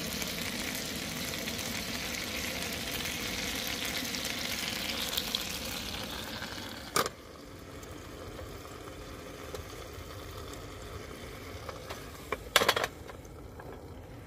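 Lamb chops and cherry tomatoes sizzling in a hinged double-sided pan on a portable gas stove. About seven seconds in, a clack as the pan shuts leaves the sizzle much quieter. Near the end there are a couple of sharp clicks.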